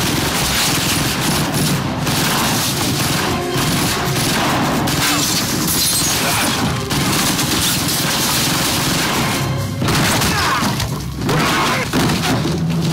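Action-movie soundtrack: sustained heavy gunfire tearing through walls, with splintering wood, shattering and falling debris, under a music score. The mix is loud and dense throughout.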